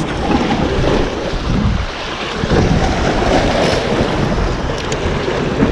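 Sea waves washing and breaking over the rocks of a breakwater, with wind buffeting the microphone in a steady, loud rush.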